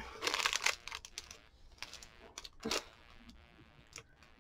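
Chocolate-bar wrapper crinkling as it is handled: a dense burst of crackling in the first second, then a few short separate crackles.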